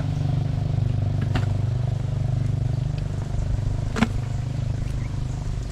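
A small engine running steadily at low speed, with a sharp click about a second and a half in and another about four seconds in.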